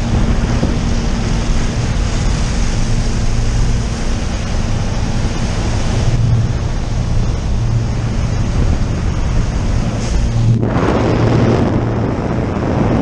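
Jump plane's engine and propeller droning steadily under loud wind rushing in through the open door. About ten and a half seconds in, the rush shifts, losing its hiss and growing fuller in the middle range.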